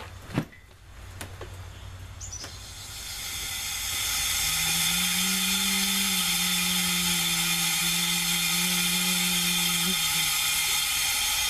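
Compressed air hissing out through a homemade cold smoke generator as the air is turned up: a sharp click just after the start, then the hiss swells over a couple of seconds and holds steady and loud. A low steady hum joins it for several seconds partway through.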